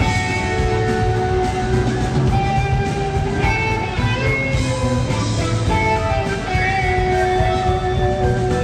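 Live rock band playing an instrumental jam, with sustained electric guitar lead notes over electric bass and drums, recorded from the audience.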